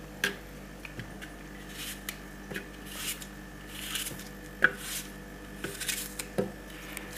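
Knife cutting an apple by hand, pieces dropping into a plastic blender jar: a string of irregular crisp cuts and knocks, the sharpest about four and a half seconds in.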